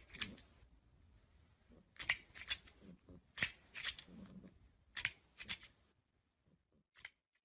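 Plastic crocodile grabber toy on an extending scissor arm clacking as it is pushed out and snapped back, in pairs of sharp clacks about a second and a half apart, four pairs and a single clack near the end.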